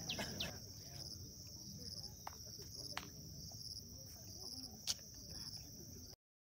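Steady high-pitched drone of insects trilling in the vegetation, with a few quick downward bird chirps at the start and a few faint clicks. It cuts off suddenly near the end.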